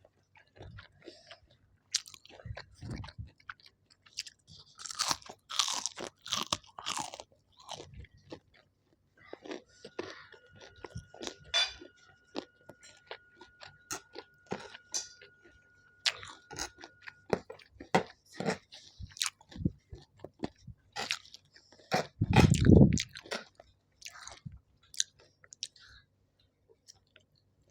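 Close-up chewing and crunching of food, made of many short crisp bites and munches. About three-quarters of the way through there is one louder, low thud.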